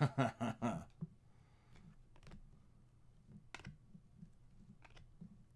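Glossy trading cards clicking against each other as they are slid one by one through a hand-held stack: a quick run of clicks at the start, then a few single clicks a second or so apart.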